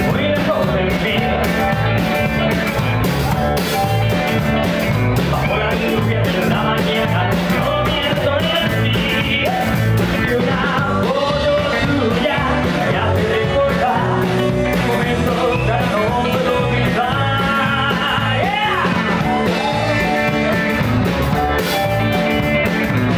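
A live rock and roll band plays at a fast, steady beat, with a telecaster-style electric guitar, a Nord Electro 2 keyboard, drums, and a man's lead vocal.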